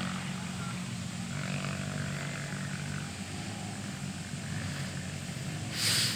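Motocross rally bike engines give a low, steady drone that weakens a little after the middle. Just before the end comes a short, sharp rush of noise.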